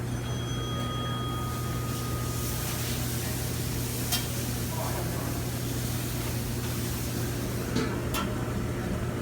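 Steady hum and hiss of kitchen equipment around a running grill, with a few light clicks and knocks about four seconds in and near the end.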